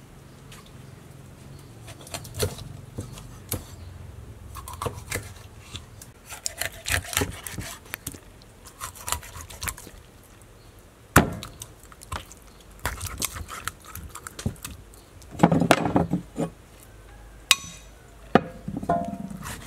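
Kitchen knife chopping a snakehead fish into steaks on a wooden cutting board: irregular sharp knocks of the blade through the fish onto the board, with a few heavier knocks in the second half.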